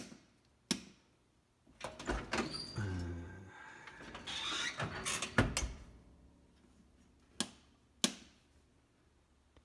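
Whirlpool oven door being opened and shut again: a few sharp clicks, a longer scraping sound as it swings open, and a heavy knock as it closes about halfway through, followed by two lighter clicks.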